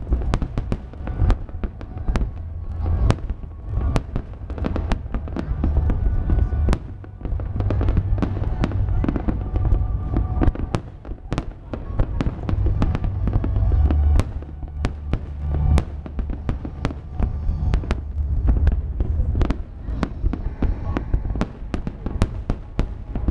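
Aerial fireworks display: shells bursting in quick succession, many sharp bangs and crackles over a continuous low rumble.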